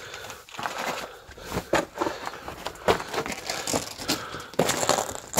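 Loose rock and dirt crunching and scraping as someone clambers over rubble, with irregular scuffs and knocks. The loudest burst comes near the end.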